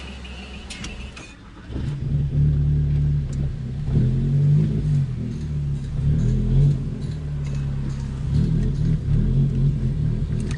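A few light clicks, then about two seconds in a car engine comes in loud and low inside the cabin, its pitch rising and falling as it is revved.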